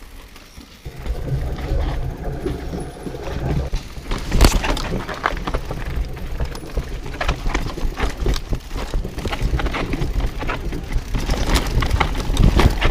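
Mountain bike riding down a rocky section: tyres, chain and frame clattering with many sharp, irregular knocks over the rocks, over a steady low rumble that starts about a second in.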